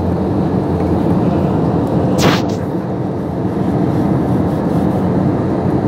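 Steady roar of a jet airliner's cabin in flight, engine and airflow noise heard from a passenger seat. A brief hiss cuts through about two seconds in.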